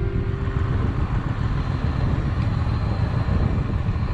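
Motorcycle on the move: steady engine note and wind rumble picked up by a bike-mounted action camera's microphone.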